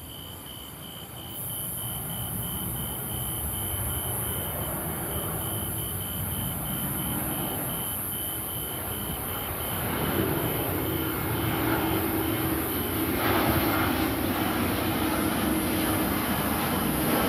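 Twin-engine jet airliner on approach, its engine noise growing steadily louder as it comes closer, with a low whine joining in about ten seconds in.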